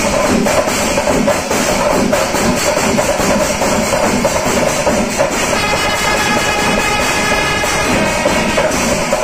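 Kerala chenda melam: a massed ensemble of chenda drums and ilathalam cymbals playing a dense, steady rhythm. About midway, a wind instrument joins with a held note lasting a couple of seconds.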